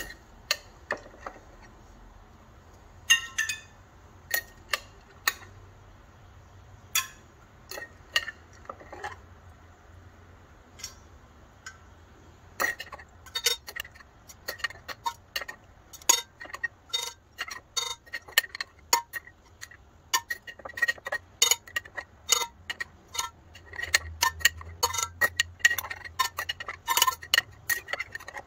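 A metal slotted spoon clinking and scraping against the inside of a glass jar of water as floating seeds are skimmed out. The clicks are scattered at first, then come quick and frequent from about halfway through.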